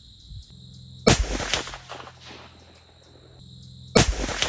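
CVA Optima .50-calibre muzzleloader firing: two sharp shots about three seconds apart, each followed by a rolling echo about a second long. Insects chirp steadily behind them.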